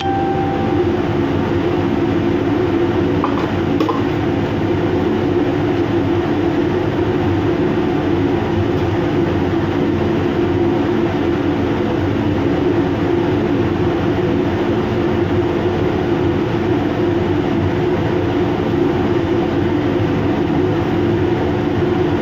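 Steady, loud mechanical drone of running machinery with a constant low hum, unchanging throughout.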